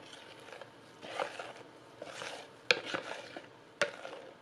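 Thick cake batter pouring and plopping softly into a bowl of whipped egg whites, in a few irregular soft swells. Two sharp clicks, about a second apart, stand out past the middle.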